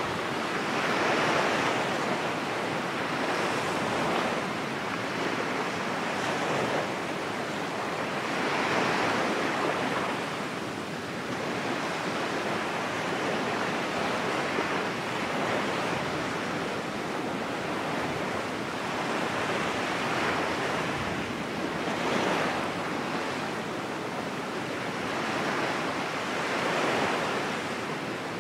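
Ocean waves washing onto a shore: a steady rushing noise that rises and falls in slow swells every few seconds.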